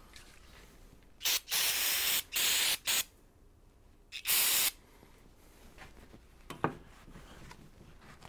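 Aerosol can of carburetor cleaner spraying in short hissing blasts, four in quick succession and then one more a second later, blasting out a carburetor main jet.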